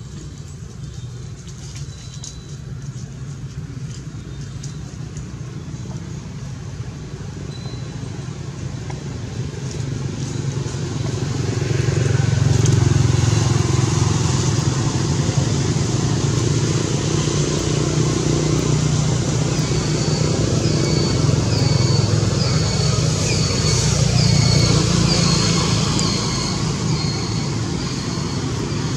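A motor engine's low drone grows louder over the first dozen seconds and then holds steady. A run of short high chirps sounds over it near the end.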